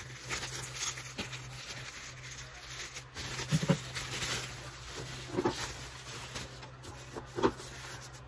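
Clear plastic bag crinkling and rustling as it is pulled off a cardboard box, over a low steady hum. Three short cries cut through it about two seconds apart, louder than the rustling.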